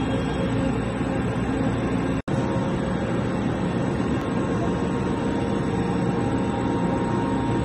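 Background music, a dark droning soundtrack, with a brief dropout to silence about two seconds in.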